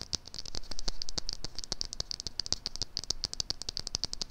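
Angled, fluffy makeup brush brushed back and forth against the microphone: a fast run of close, scratchy bristle strokes, many a second.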